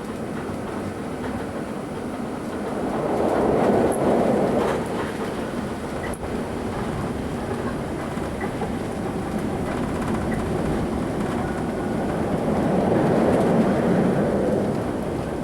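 British Rail Southern Region 2EPB electric multiple unit running along the line, heard from on board: steady wheel and running noise with the English Electric traction motor, swelling louder twice, about three seconds in and again near the end.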